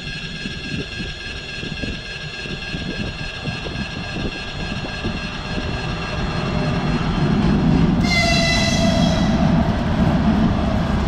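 A 2ES4K two-section electric locomotive hauling a passenger train approaches with a growing rumble. About eight seconds in it sounds a short horn blast that dips slightly in pitch as it passes. The rumble of the locomotive and coaches going by is loudest near the end.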